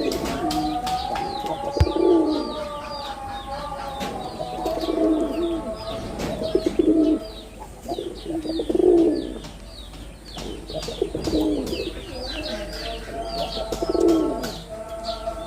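Male jalali pigeons (rock doves) cooing, a deep rolling coo every second or two, over a constant rapid high chirping from other birds.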